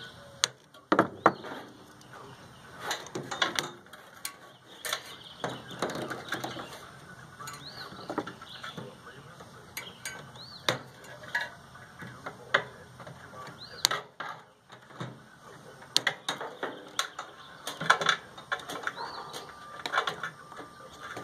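Old microwave oven being taken apart with hand tools: irregular metal clicks, clanks and scraping as its parts are worked loose.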